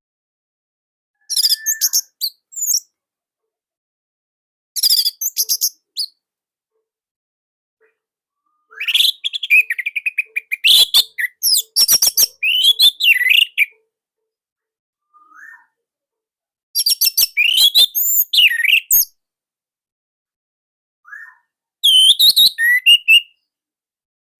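Orange-headed thrush singing: about seven separate bursts of fast, high, varied warbling notes, the longest running about five seconds through the middle, with gaps of a second or more between them.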